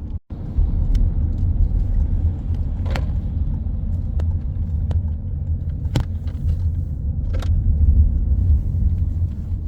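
Steady low road-and-engine rumble heard inside a moving car, with a few faint clicks.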